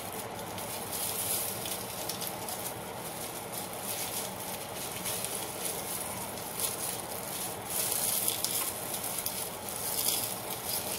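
Crackly rustling of fresh lemongrass stalks and leaves being handled and tied by hand, over a steady hiss.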